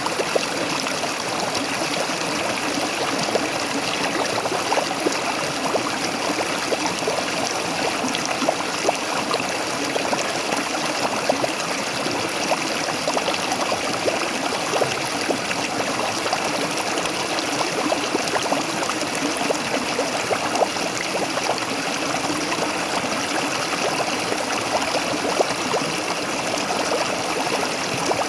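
Small waterfall splashing and gurgling steadily: a constant rush of water with dense little splashes through it, unchanging throughout.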